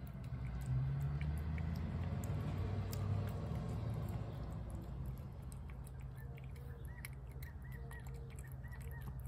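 A cat chewing and eating wet chicken off a plate, with many small wet clicks, over a low steady background rumble that is loudest in the first few seconds. Past the halfway point a bird chirps repeatedly in the background, a couple of short notes a second.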